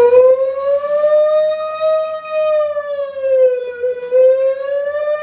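A person's voice imitating a tornado siren: one long wail that starts suddenly, rises a little, sags about four seconds in and rises again near the end.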